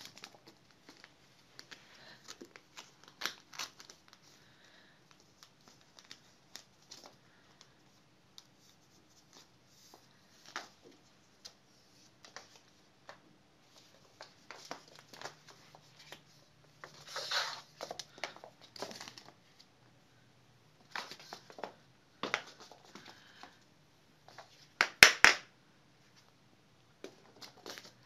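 A white rolled-up tube toy crinkling and rustling as a kitten bats, grabs and bites it, mixed with light taps and scrabbling on a laminate floor. The rustles come in short irregular bursts, with louder ones about two-thirds of the way in and again near the end.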